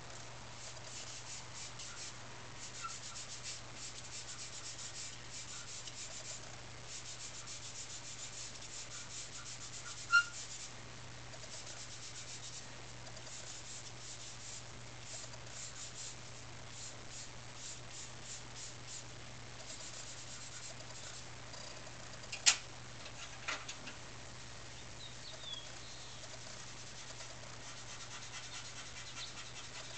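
Charcoal pencil scratching on drawing paper in quick, short, repeated strokes as fur is hatched in. Two sharp taps stand out, about a third of the way in and again past two-thirds.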